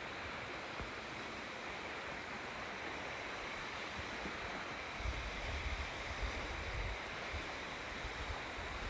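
River water flowing, a steady rushing noise. From about five seconds in, low gusts of wind buffet the microphone.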